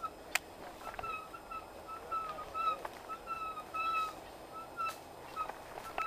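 Mountain bike ridden over a rough trail: short squeaks at one steady pitch repeat two or three times a second, mixed with sharp clicks and rattles from the bike.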